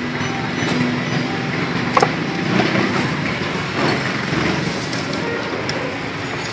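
Busy street-market ambience: a steady mix of traffic noise and a murmur of voices, with a sharp knock about two seconds in.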